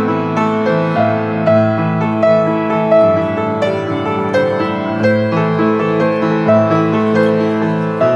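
Grand piano being played: a melody of held notes over a line of lower bass notes.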